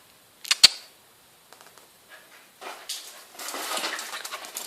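Two sharp knocks in quick succession, then from about halfway through a rough scraping and rattling with many small clicks.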